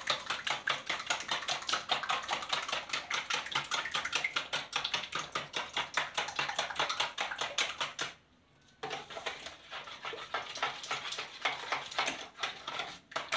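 A spoon rapidly beating eggs and sugar by hand in a plastic bowl, a quick run of clicking strokes several a second, with a brief pause about eight seconds in. The mixture is being beaten until the sugar dissolves into the eggs.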